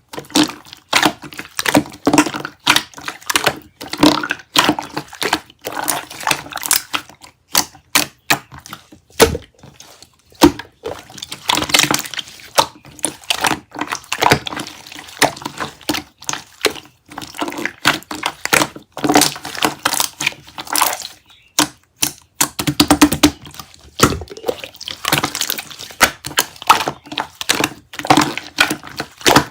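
Slime being squeezed, pressed and stretched by hand, giving a dense, irregular run of sticky, wet clicks and crackles.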